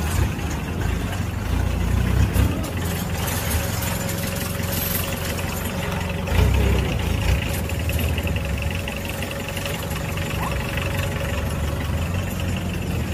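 Engine running steadily: a low, even rumble with a faint steady hum above it, swelling slightly about six seconds in.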